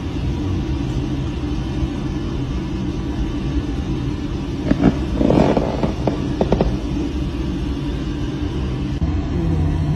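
Steady low rumble and hum of a deep-sea submersible's cabin machinery, with a few sharp knocks and a short rustling noise about five to six and a half seconds in.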